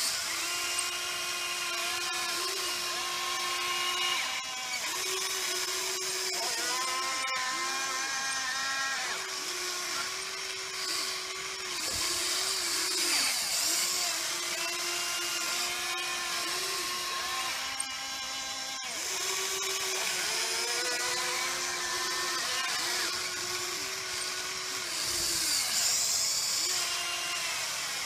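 Huina 580 RC excavator's electric motors whining in short stop-start runs, the pitch shifting as each movement of the arm and bucket starts and stops. Twice a hiss of the bucket scraping through dirt rises over the whine.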